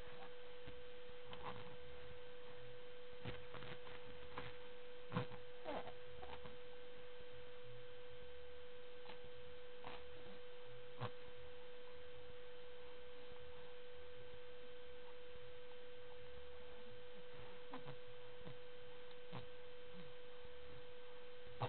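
A steady hum at one even pitch, with a few faint clicks scattered through it. The clearest click comes about five seconds in.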